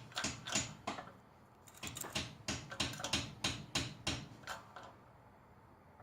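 Shop press being worked to drive a carrier bearing down onto a differential carrier: a quick run of sharp metallic clicks, a few at first, then a steady series of about three a second for about three seconds.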